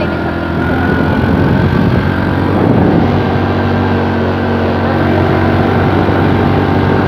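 Small motor scooter's engine running steadily while riding along.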